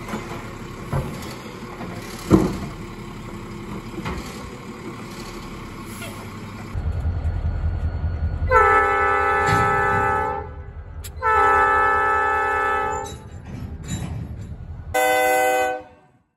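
A garbage truck's engine runs with two sharp thumps. Then an Escanaba & Lake Superior Railroad diesel locomotive rumbles past, sounding its multi-note air horn in two long blasts and one short blast before the sound fades out.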